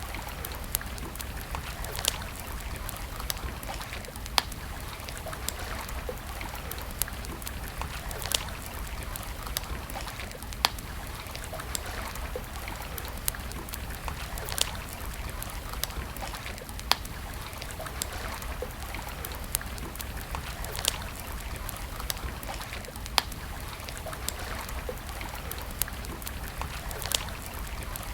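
Campfire crackling: a steady hiss of burning wood broken by sharp, loud pops every second or two.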